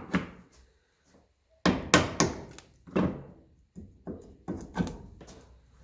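A series of about ten irregular, sharp metal knocks and clanks as tools and cast-iron parts of a vintage tractor water pump are worked on at a bench.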